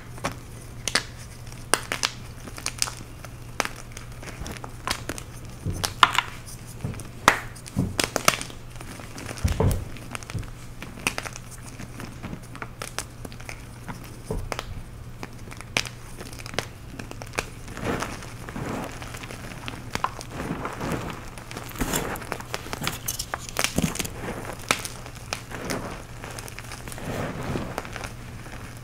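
Hands crushing and crumbling blue chalk blocks and powder: irregular crisp snaps and crunches as pieces break, mixed with softer gritty squeezing of the powder.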